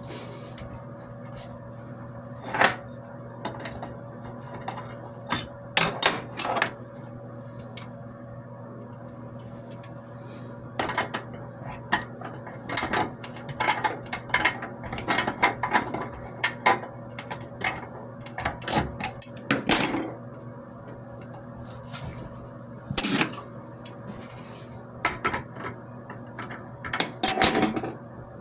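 Irregular metallic clinks and knocks of hand tools and hard parts being handled and set down, some in quick clusters, over a steady low hum.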